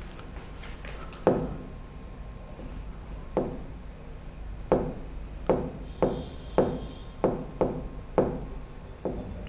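About ten sharp taps on an interactive touchscreen board as its toolbar buttons are pressed repeatedly, undoing the written work; the taps come closer together in the second half.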